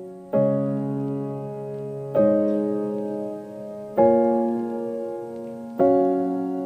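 Slow background music on piano-like keyboard: a sustained chord struck about every two seconds and left to fade, four chords in all.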